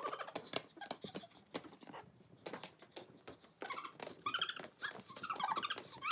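Two Pomeranian puppies playing with a balloon: a run of quick taps and scuffles, with short high squeaky sounds about four seconds in and again near the end.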